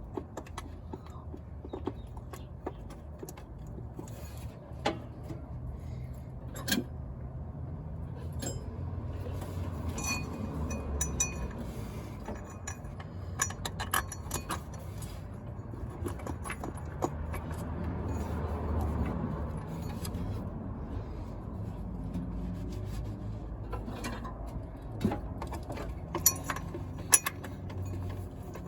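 Scattered metallic clicks and clinks of hand tools and parts being handled while working on a car's engine, over a steady low rumble.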